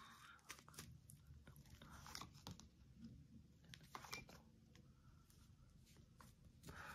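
Near silence: room tone with faint, scattered small clicks and crackles at irregular intervals.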